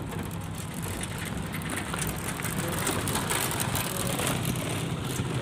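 Vehicle engine running at a steady drone with road noise, heard from inside the cabin while driving slowly along a village road.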